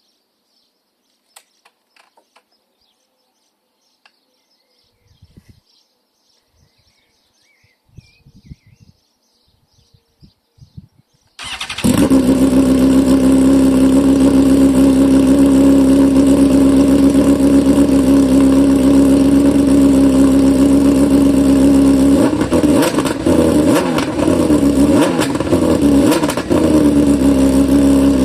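Faint clicks and knocks, then about eleven seconds in a BMW S1000RR motorcycle's inline-four engine fires up and idles steadily and loudly through its exhaust. Near the end the throttle is blipped several times, the revs rising and falling quickly before settling back to idle.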